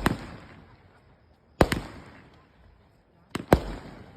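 Fireworks going off: sharp bangs about every second and a half, each trailing off in a rumbling echo, with two in quick succession near the end.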